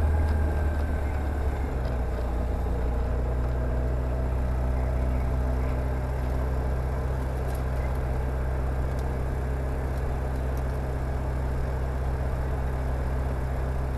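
Rotax 912 flat-four engine of a CSA PS28 Cruiser light aircraft idling on the ground, heard from inside the cockpit: a steady propeller-engine drone that eases slightly lower about one and a half seconds in, then holds even.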